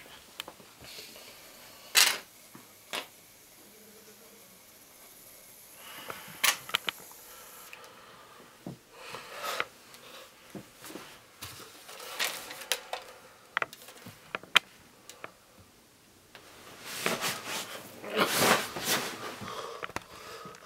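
Scattered sharp clicks and knocks with rustling handling noises, and a longer stretch of rustling near the end.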